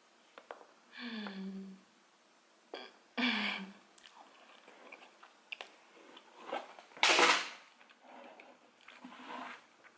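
Close-up mouth sounds of a person eating cheesy deep dish pizza: soft chewing clicks, two short hummed 'mm' sounds with falling pitch in the first few seconds, and a loud slurp about seven seconds in as a stretched cheese string is drawn into the mouth.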